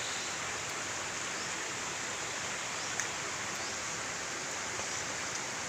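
Steady rushing background noise, with one faint click about three seconds in.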